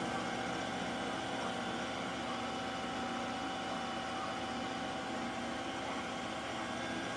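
Bridgeport vertical milling machine running steadily: an even mechanical hum with several constant tones as the end mill cuts a bevel into a 1911 pistol frame's magazine well.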